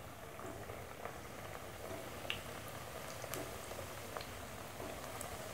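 Hot oil quietly sizzling and bubbling around flour-dough rolls deep-frying in a pan, with scattered small pops and crackles, the sharpest a little after two seconds in and again about a second later.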